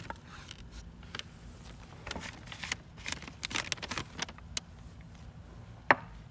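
Sliced red onion being gathered and swept off a bamboo cutting board by a gloved hand: scattered light scrapes and rustles, then one sharp knock near the end.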